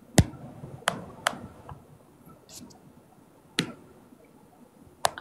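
Five sharp clicks at irregular intervals over a quiet background, the first and loudest just after the start, with one fainter click among them.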